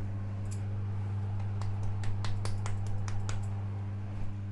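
A run of small, irregular clicks and ticks, a few a second and busiest mid-way, as pepper is added to the soup, over a steady low hum.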